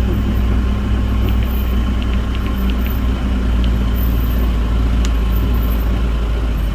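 Tour vehicle's engine idling steadily with a low, even hum while the vehicle waits, stopped.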